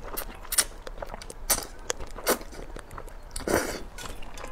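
A person slurping and chewing a mouthful of rice noodles: a run of short wet mouth clicks, with a louder, longer one about three and a half seconds in.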